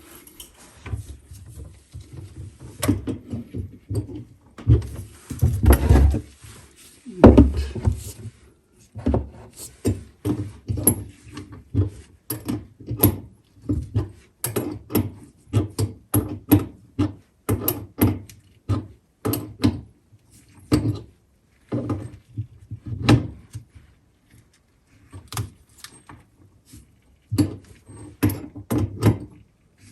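An adjustable wrench clicking and knocking on the threaded nut of a steel-braided faucet supply line as the nut is tightened beyond finger-tight, with dull thumps of handling under the sink. The short metallic knocks come irregularly, one or two a second.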